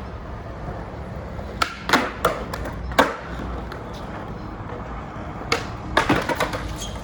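Skateboard wheels rolling over the ground in a steady rumble, with a series of sharp wooden clacks from the board: a few in the first three seconds, then a quick cluster near the end.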